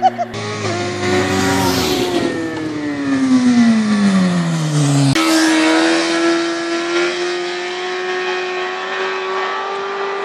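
Sport motorcycle engine revving high as the bike passes: its pitch falls steadily over the first five seconds, then jumps abruptly to a higher steady note that slowly climbs as it pulls away.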